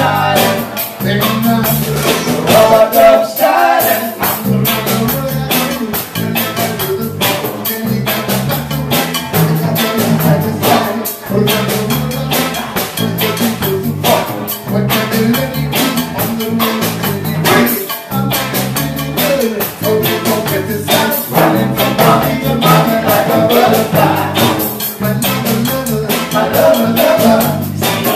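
Live reggae band playing: drum kit, keyboards and guitars with a steady beat, and a lead vocal.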